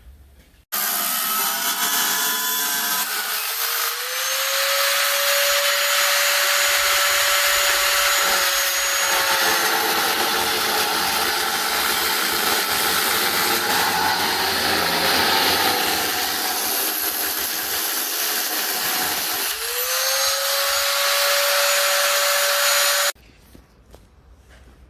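A power tool running hard for about 22 seconds with a harsh, hissing noise; its motor pitch rises and settles as it spins up twice, a few seconds in and again near the end.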